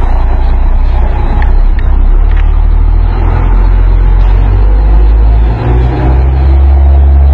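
Heavy tractor-trailer truck's diesel engine running loud and low as the rig creeps through a tight U-turn and pulls away.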